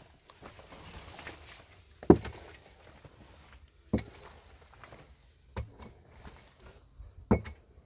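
A series of sharp knocks or impacts, four of them at a slow, even pace, roughly one every one and a half to two seconds.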